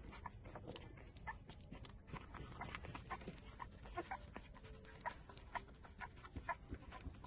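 Four-week-old puppies nursing at their mother's teats: faint, quick wet smacking and sucking clicks, with a few brief small squeaks.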